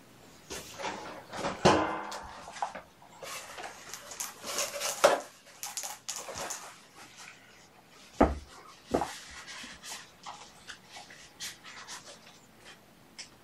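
Kittens playing with toys: irregular scuffling, rustling and light knocks, with a short squeaky sound near two seconds in and a single sharp thump about eight seconds in.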